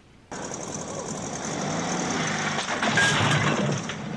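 A motor vehicle's engine running in a film soundtrack, starting suddenly a moment in and holding steady with a slight swell around the middle.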